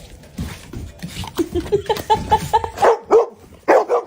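A dog barking over and over in quick short barks.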